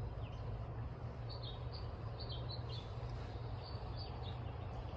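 Outdoor ambience: small birds chirping here and there over a steady low rumble.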